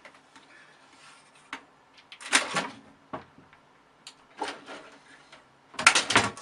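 A cat leaping up against a computer tower case and scrabbling at it with its paws, making a few bumps and claw scrapes, the loudest near the end.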